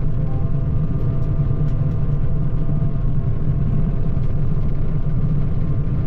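A vehicle engine running steadily: a constant low rumble with a faint steady whine above it.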